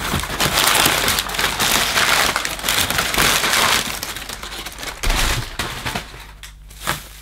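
Crumpled brown kraft packing paper rustling and crackling as it is pulled out of a box, loudest over the first four seconds, then quieter handling of plastic bubble wrap with a soft knock about five seconds in.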